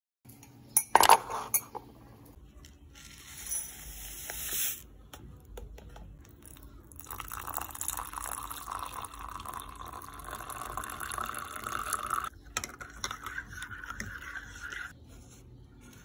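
A few sharp clinks about a second in, then a steady stream of liquid poured into a ceramic mug of dry ingredients for several seconds.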